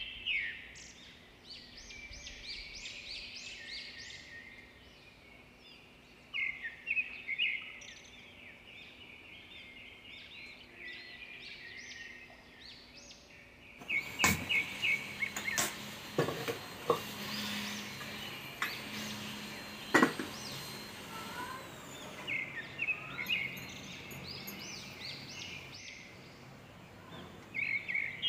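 Small birds chirping in quick repeated notes. About halfway through, a few sharp clicks and a steady hiss as a hand-held spark lighter is worked at a gas stove burner; the birds return near the end.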